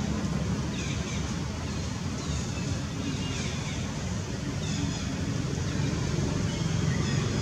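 Steady low outdoor rumble with faint, short high chirps about once a second.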